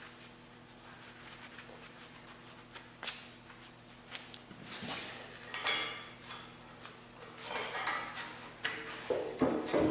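Steel loader parts clanking and scraping as they are handled and worked loose, in irregular knocks and rubs, the sharpest a little over halfway through. A low steady hum runs underneath.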